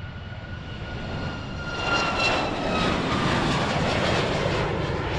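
Boeing 737 MAX's CFM LEAP-1B turbofan engines at takeoff thrust as the jet lifts off and climbs out. A high fan whine falls slightly in pitch, and the rushing engine noise grows louder about two seconds in.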